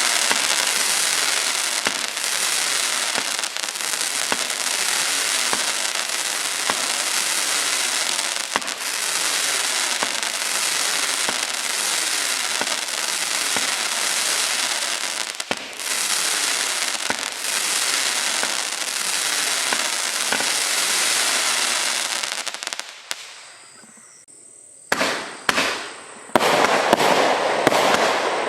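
Consumer firework barrage firing: a dense, unbroken crackle for about twenty-three seconds that then dies away. A couple of seconds later, separate loud firework bursts go off one after another.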